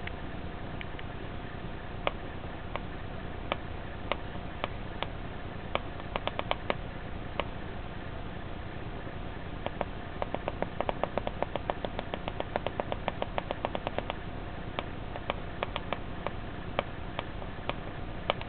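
Sound effect from an AVR microcontroller circuit built for a prop raygun: sharp clicks, scattered at first, then a fast run of about six a second in the middle, then scattered again, over a steady electrical hum.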